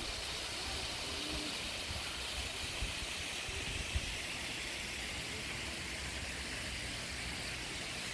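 Steady outdoor hiss with an unsteady low rumble of wind on the microphone, and a single faint tap about four seconds in.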